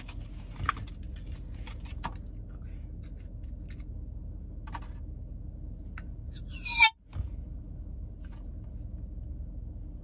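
Plastic blister packaging of a can-type air horn rustling and clicking as it is unwrapped, over a steady low hum in the car cabin. About two-thirds of the way through comes one short, loud sound that falls in pitch and cuts off suddenly into a moment of silence.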